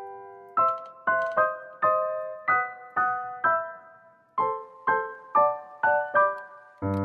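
Background piano music: a light melody of single notes, each struck and fading away, about two or three a second. Lower notes join in just before the end.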